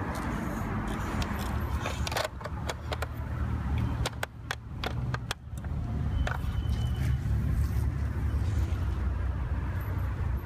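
Metal chain of a toy crane rattling and clinking in a quick run of small clicks, over a steady low rumble.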